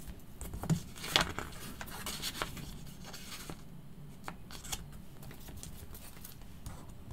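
Card stock being pressed into place on a stamping platform and a flexible clear plastic stamp being handled. Scattered light clicks and taps mix with short rustling and crinkling of plastic, the sharpest click about a second in.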